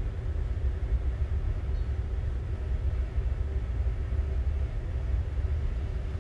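Steady low machinery rumble with a faint constant hum over it, unchanging throughout; no distinct tool knocks stand out.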